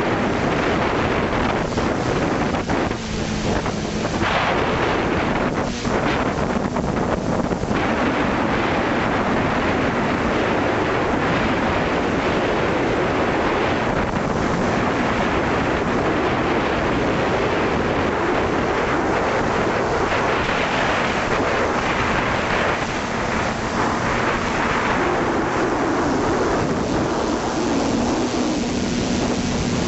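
Loud, steady wind rush on the microphone of a camera carried by a flying multirotor drone, with a faint, steady hum from its motors and propellers underneath.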